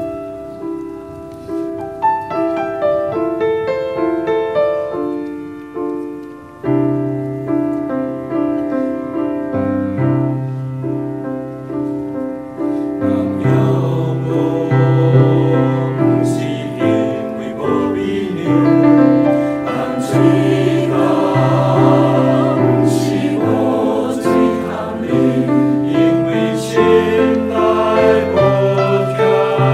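A mixed church choir singing a Chinese sacred anthem with piano accompaniment. The piano plays alone at first, deeper bass notes enter about a quarter of the way through, and the choir comes in around halfway.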